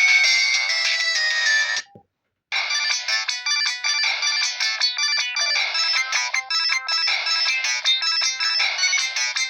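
Samsung SGH-E630 mobile phone playing its built-in ringtones through its small speaker, thin with no bass. One synthesized melody cuts off about two seconds in; after a brief click and half a second of silence, the next ringtone starts, a quick tune of short repeated notes.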